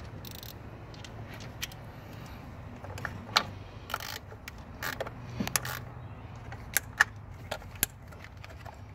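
Scattered clicks and rattles of hands handling plastic electrical connectors, hoses and wiring in an engine bay, the sharpest snaps about three and a half and seven seconds in.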